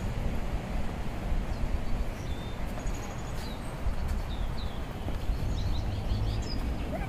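Small birds chirping, with many short high calls and quick pitch glides scattered throughout, over a steady low rumble.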